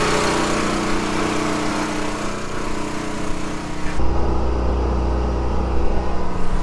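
An engine running steadily. About four seconds in, the sound changes suddenly to a deeper rumble and the high hiss drops away.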